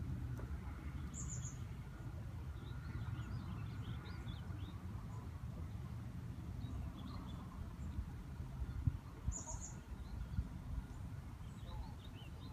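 Small birds chirping and twittering in scattered short notes, with two brief, very high calls, one about a second in and one near nine seconds. A steady low rumble runs underneath.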